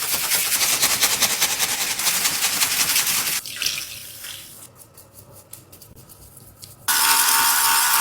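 Tap water running over a squishy toy as it is washed, with a crackly rubbing texture, stopping about three and a half seconds in. Small wet clicks and squelches follow. Near the end a steady electric buzz starts suddenly.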